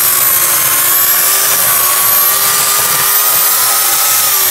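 Craftsman electric chainsaw running at a steady high whine as its chain cuts into a tree stump. Near the end the whine starts to drop in pitch as the motor winds down.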